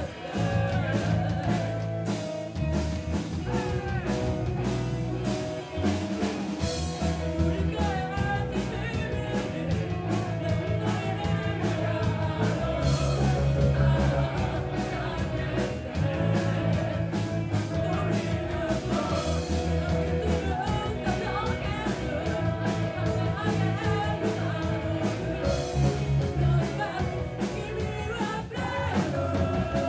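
Live rock band playing, with a woman singing lead over drums, electric bass and guitar.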